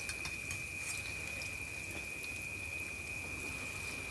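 Marinated prawns and green chillies sizzling gently in hot oil in a kadai, with scattered faint pops and crackles. A steady high-pitched tone sits under the sizzle.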